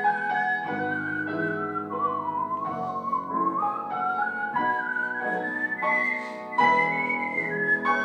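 A melody whistled over piano accompaniment, the whistle sliding smoothly from note to note above the chords.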